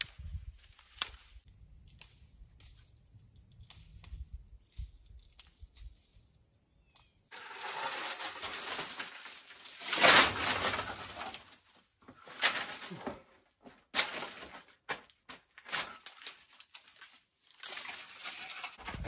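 Dry reed canes rustling and clattering as they are handled and stripped, with sharp clicks of cane knocking on cane. Before that there is a low rumble with a few faint clicks; the rustling comes in suddenly, about seven seconds in, and is loudest a few seconds later.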